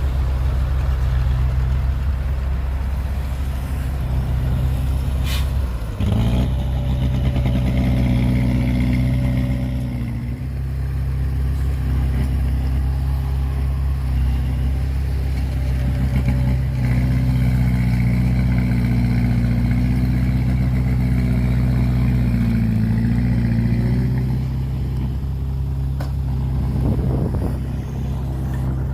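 Heavy diesel engine of earthmoving machinery running steadily at a low pitch, its note dropping and picking up again about six seconds in and shifting a little later on, with a single sharp click just before the first change.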